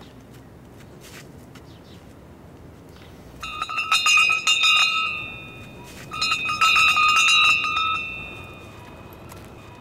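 A hanging bell rung by hand: two bouts of rapid clanging, each about two seconds long, with a short pause between. Each bout has steady ringing tones under the strikes.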